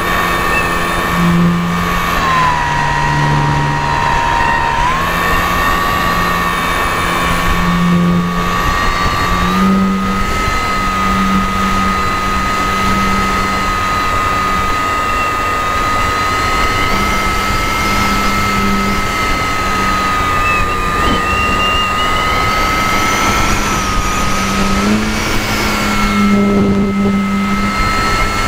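Motor of a radio-controlled model plane heard from a camera riding on it: a steady high whine that drops briefly about two seconds in and comes back up a few seconds later, over a lower droning tone that shifts in pitch and a rush of air noise.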